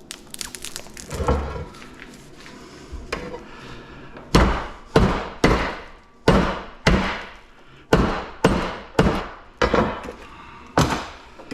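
Repeated sharp blows, about a dozen at roughly two a second starting about four seconds in, with a fainter knock about a second in: the dried-out, brittle insulation of an old welder power cord is being beaten to crack it loose, since it is too hard to cut with a knife.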